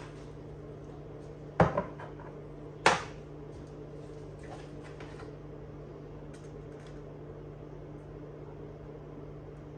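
A small ceramic bowl set down on a kitchen counter: two sharp knocks, about a second and a half in and again about a second later, over a steady low hum.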